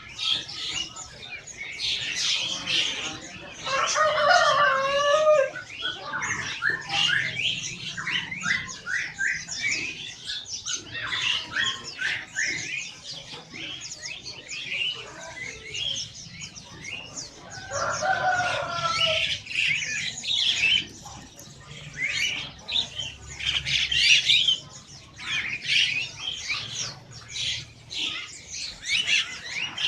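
Many caged birds at a bird market chirping and calling all at once, a dense chatter of quick high chirps. A couple of lower, drawn-out sliding calls stand out about four seconds in and again around eighteen seconds.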